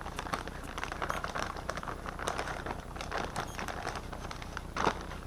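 Rustling and small irregular clicks of a valve cover gasket and its packaging being handled, with one louder knock near the end.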